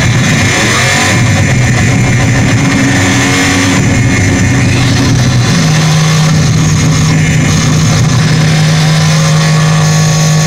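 Loud live experimental noise music from electronics and effects: a dense distorted rumble that settles about halfway into one steady low drone, with several higher held tones joining near the end.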